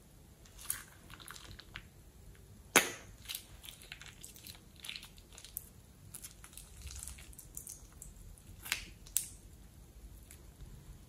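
Orange slime squeezed out of a rubber balloon into a glass bowl: scattered soft wet crackles and clicks as the balloon is pressed and the slime pours. A sharp snap about three seconds in, and two more clicks near the end.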